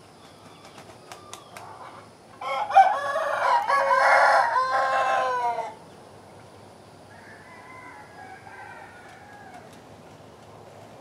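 Black-breasted red Phoenix rooster crowing once, a loud cock-a-doodle-doo about three seconds long. A fainter crow follows a little later.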